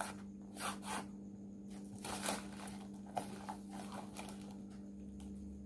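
Cardboard phone packaging and its plastic and tissue wrapping being handled, with a few short rustles and crinkles, over a steady low hum.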